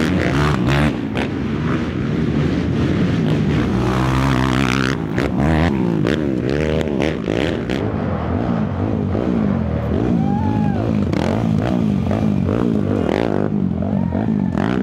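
Racing quads' engines revving hard and accelerating through a wooded trail, pitch climbing and dropping with each shift and throttle blip.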